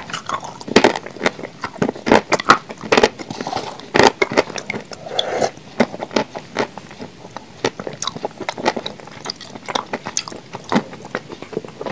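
Close-miked chewing of a mouthful of blue Uzbek clay paste: irregular sharp crunchy clicks, a few each second.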